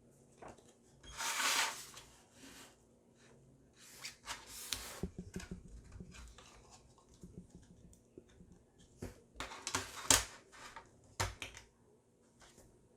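A CD booklet and its case being handled: rustling about a second in and again around four seconds, then a series of sharp clicks and knocks near the end, the loudest about ten seconds in.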